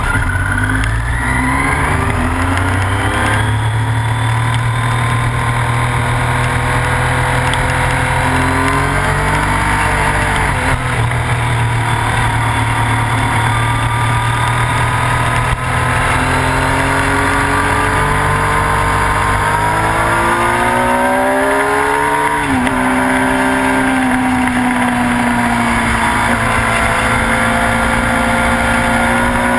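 Motorcycle engine heard from an onboard camera at speed, its pitch climbing and stepping down again and again with throttle and gear changes, with a sharp fall about two-thirds through as it slows for a corner. Wind rushes over the microphone throughout.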